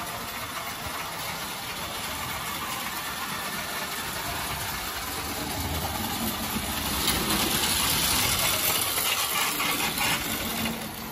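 Lionel No. 42 standard-gauge tinplate locomotive running on metal track with its train: a steady motor whir and wheel rattle, growing louder about seven seconds in as it passes close.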